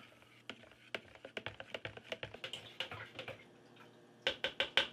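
A spoon stirring eggnog in a plastic pitcher, ticking quickly and lightly against the sides. Near the end comes a faster run of louder taps.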